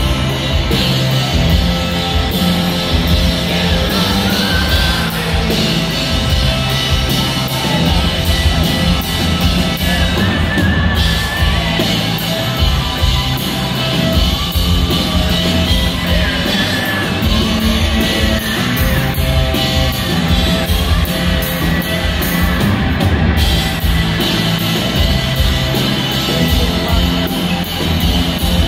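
Rock band playing live in a large hall: electric guitars, bass and drums with lead vocals and yells over them.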